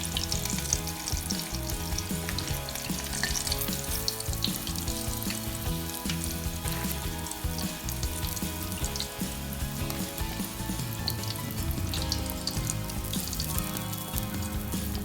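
Breaded okra frying in hot oil: a steady, dense sizzle and crackle.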